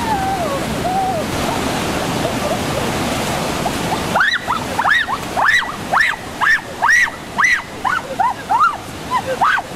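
Rushing stream water over rocks, a steady rush. From about four seconds in, about a dozen rising-and-falling whistled calls come roughly two a second over it.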